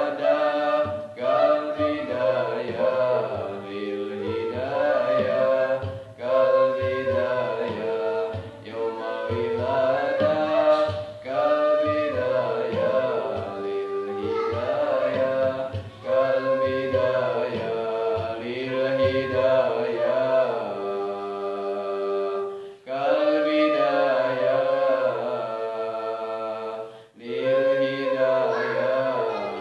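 Sholawat, an Islamic devotional song, sung in long gliding phrases with suling bamboo flute accompaniment, with short breaks between phrases.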